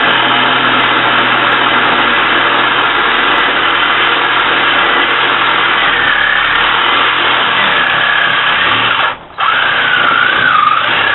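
Battery-powered Black & Decker reciprocating saw running steadily, cutting through a plywood sheet. It stops for a moment about nine seconds in, then starts again.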